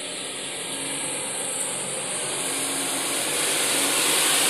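White SUV's engine running as it drives through deep mud, growing steadily louder as it approaches, over a steady hiss.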